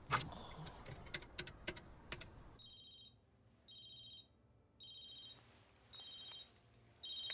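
A few sharp taps, then a telephone ringing with an electronic two-tone ring in short bursts, about once a second.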